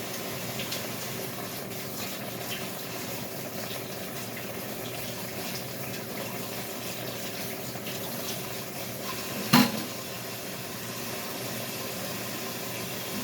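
Kitchen tap running steadily into a sink while hands are washed, with one sharp knock about ten seconds in.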